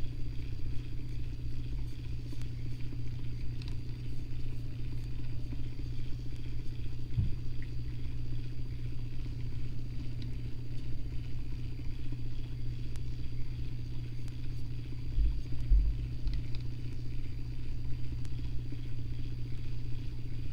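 Steady low electric hum of a rod-turning motor slowly rotating an epoxy-coated fishing rod, with a couple of low bumps about three-quarters of the way through.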